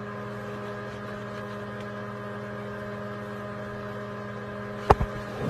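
A steady electrical hum of several even tones. Just before the end there is a single sharp knock.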